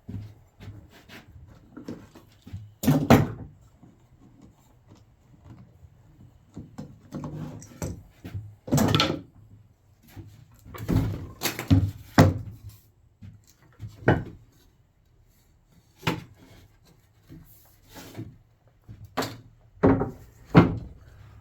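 Irregular knocks and thumps of wooden pieces being handled and set down, a dozen or so spread through the stretch, the heaviest a few seconds in, around the middle, and near the end.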